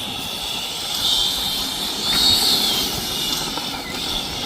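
Electric ducted-fan whine of a Freewing F-16 RC jet in flight, a high whine that rises and falls in pitch and loudness. The jet is heavily loaded with full ordnance and drop tanks and is struggling to fly forward.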